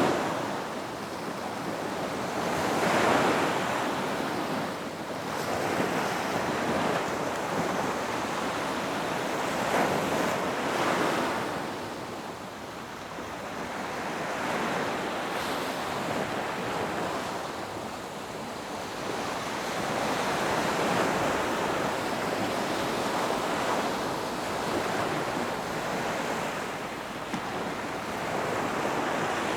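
Ocean waves surging and washing in, a steady rushing wash that swells and fades every few seconds, with the strongest surges about three and ten seconds in.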